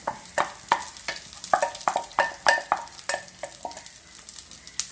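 A spoon knocking and scraping against a bowl in a quick run of ringing clinks, thinning out near the end, as crushed fried chicken is tipped into a hot frying pan. Onion masala sizzles in the oil underneath.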